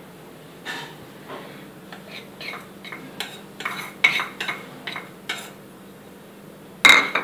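A metal spoon scraping and tapping against a small bowl as chickpea flour is tipped out into a glass bowl: a run of light clicks and scrapes. Near the end comes one sharper clink with a short ring.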